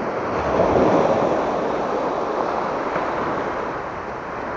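Small waves breaking and surf washing over a rocky shoreline, swelling about a second in and then easing off.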